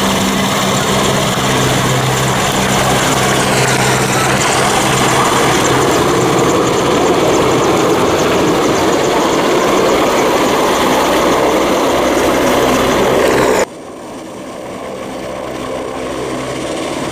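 EH-101 Merlin helicopter flying low past, its rotor and three turbine engines giving a loud, steady drone. About 14 seconds in the sound drops off suddenly, then slowly grows louder again as the helicopter approaches.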